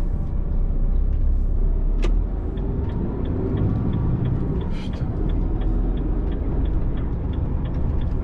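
Inside a Renault truck's cab, the diesel engine and road noise give a steady low rumble as the lorry rolls slowly through town. A sharp click comes about two seconds in, then a regular ticking about three times a second, and a short hiss near the five-second mark.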